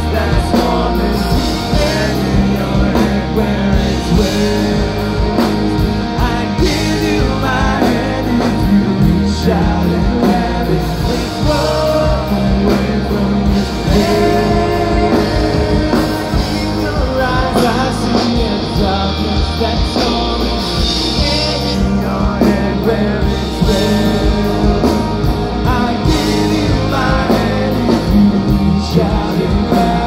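Live rock band playing loud amplified guitars, bass and drums, with a singing voice over them.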